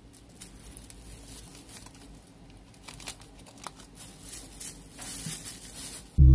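Thin plastic bag and a foil seasoning sachet rustling and crinkling as hands shake powder over the food, with scattered small ticks; the rustling is loudest from about 5 s in. Loud music starts abruptly just before the end.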